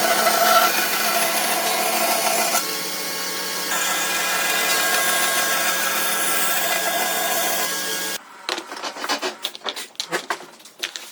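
An electric power tool running against wood, a steady abrasive sawing or sanding noise over a constant motor tone. It cuts off abruptly about eight seconds in, leaving scattered light knocks and scrapes.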